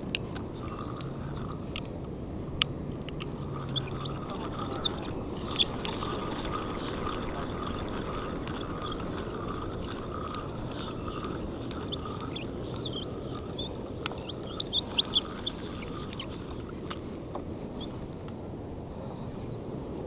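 Spinning reel being cranked to bring a hooked fish up, its gears whirring and ticking over a steady background rush. A few sharp knocks stand out, with a quick run of them about fifteen seconds in.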